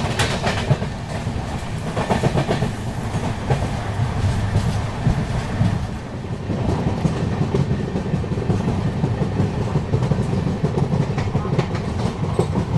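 LHB passenger coaches running at speed, heard from an open door of the moving coach: a steady rumble of wheels on rails. Runs of clickety-clack come near the start and again about two seconds in.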